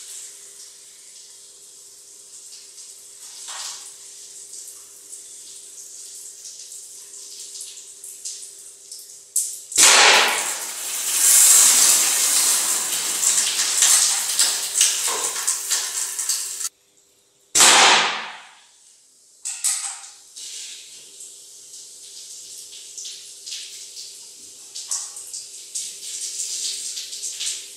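Water spraying and trickling from pellet holes in water-filled plastic soda bottles, a steady hiss. About ten seconds in a loud gush of spraying water starts suddenly and lasts several seconds, then cuts out abruptly, followed by a short loud burst that dies away.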